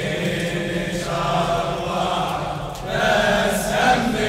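Male voices chanting a Shia latmiya (mourning elegy) in unison, the sound of many voices together rather than one clear solo line, with a short lull a little before three seconds in.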